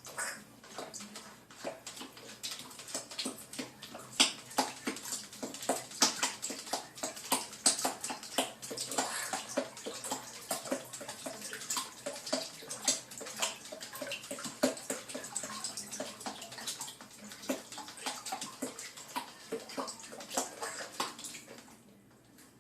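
Bath water splashing and sloshing in quick, irregular splashes, dying away near the end.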